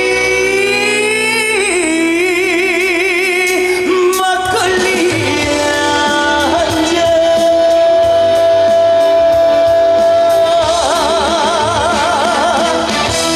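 Live trot song: a singer holding long notes with wide vibrato over an amplified band backing, with a short break of drum strikes about four seconds in.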